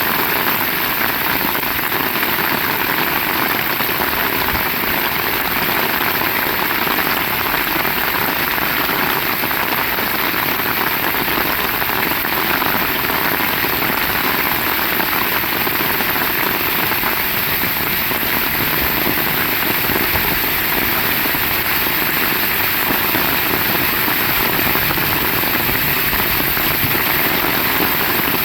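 Heavy rain falling steadily, an even, unbroken hiss with no thunder claps.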